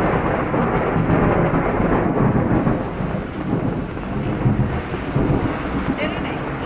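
Heavy typhoon rain pouring down loudly and steadily.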